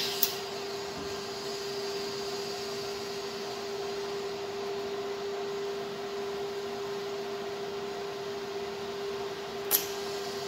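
TIG welding on a metal tube: the welder's steady electrical hum with a faint hiss of the arc, and sharp clicks at the start and again near the end.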